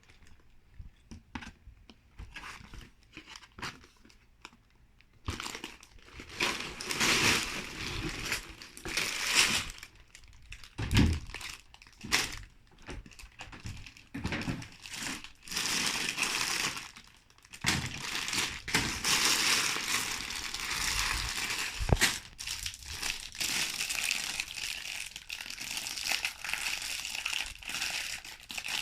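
Plastic LEGO parts bags being handled and crinkling, after a few seconds of light clicks and taps, with an occasional knock.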